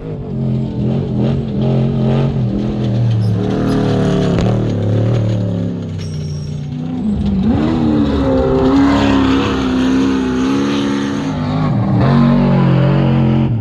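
Off-road race truck's engine running hard as it passes, its pitch dropping and climbing again about seven seconds in and once more near the end.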